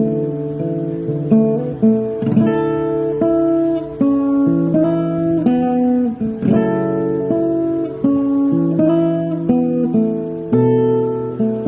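Background music: a strummed acoustic guitar playing a steady, gentle chord progression.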